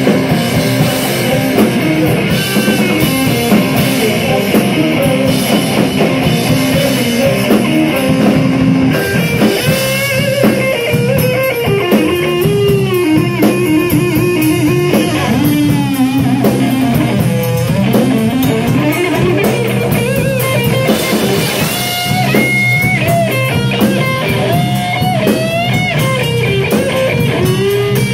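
Live blues-psychedelic rock trio playing loud: electric guitar, bass guitar and drum kit. From about ten seconds in, a lead line of bending, sliding notes rises over the band.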